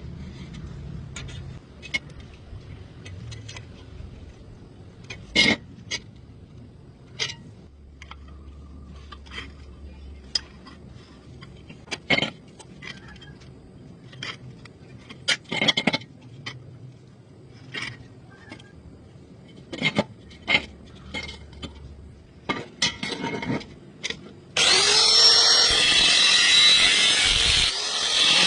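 Scattered knocks and clicks from workshop handling, then about 25 seconds in a power tool starts up with a brief rising whine and runs loudly and steadily.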